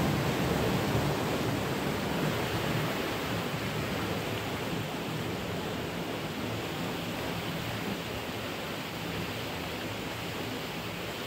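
Muddy floodwater rushing past a concrete sluice gate: a steady rush of water that grows gradually fainter.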